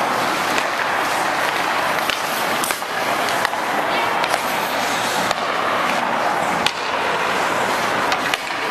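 Hockey skates scraping and carving on ice, with sharp clacks of sticks and puck scattered through it.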